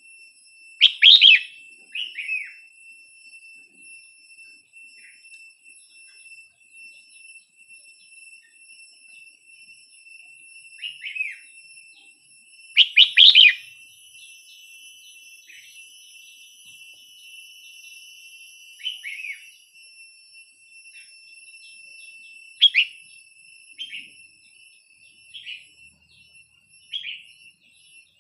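Red-whiskered bulbul singing: about nine short phrases of a few quick notes, spaced a few seconds apart, with the loudest about a second in and around thirteen seconds. A steady high-pitched whine runs underneath.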